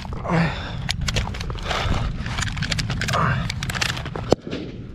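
Small-arms gunfire on a live-fire range: many sharp shots in an uneven rapid string, with a single louder crack about four seconds in. Short shouts come in between the shots.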